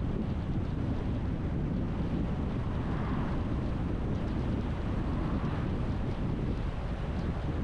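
Steady road noise from a moving electric car: tyre rumble and wind buffeting the microphone, with no engine sound, since the Hyundai IONIQ runs silently on electric power.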